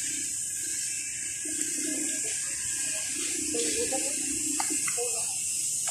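Shallow water and mud sloshing and splashing as people wade and grope by hand in a drained pond, over a steady high hiss.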